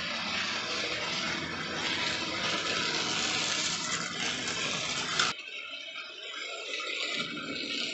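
Hornby OO gauge model train running on the track: a steady rushing whirr of the motor and wheels on the rails, which drops abruptly quieter about five seconds in.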